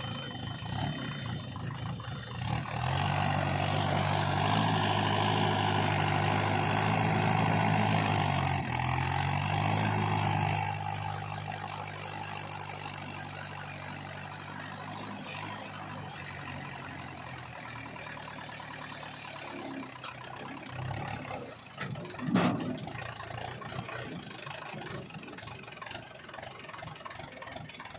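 An engine running: it rises in level about three seconds in, shifts pitch near ten seconds, then settles to a quieter, steady idle. A loud clatter comes about two-thirds of the way through, and light, rapid ticking follows near the end.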